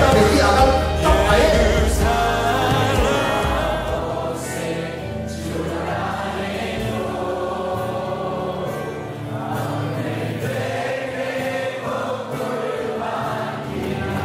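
A choir singing with musical accompaniment. The deep bass part drops out about four seconds in and the singing carries on.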